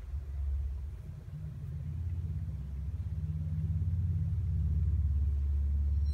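A low rumble that builds over the first few seconds and then holds steady, with nothing above a deep hum-like band.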